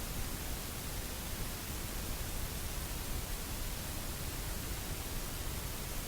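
Steady static hiss with no other sound.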